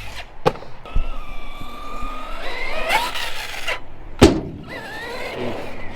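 Electric motor of a Team Associated Rival MT10 RC monster truck whining and revving up and down, with sharp knocks as the truck hits the ground. The loudest knock comes about four seconds in.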